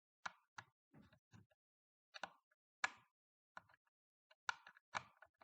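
Faint, irregular clicks and light taps of hand tools and handling against a plastic battery-pack casing during a teardown.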